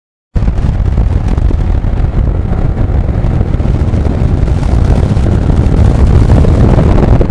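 Motorcycle on the move, a heavy rumble of engine and wind on the microphone that cuts in abruptly a moment in.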